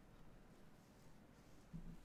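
Near silence: room tone, with one faint soft thump near the end.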